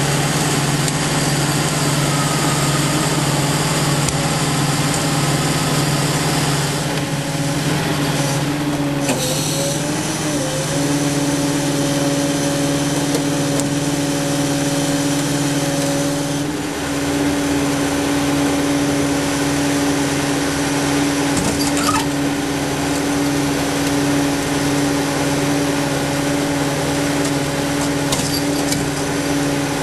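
Tow truck engine running steadily, with a steady whine that comes in and holds from about ten seconds in.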